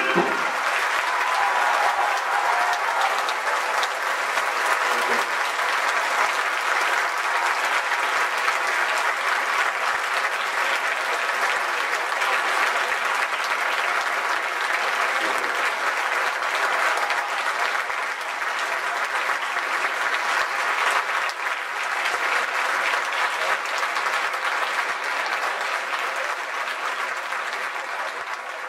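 Large concert audience applauding steadily, just after the band's final chord breaks off at the very start. The clapping fades out near the end.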